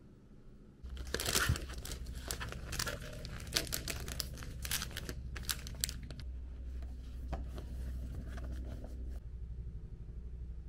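Plastic packaging crinkling and tearing as it is handled and opened by hand: a dense run of sharp crackles that starts about a second in and stops about nine seconds in.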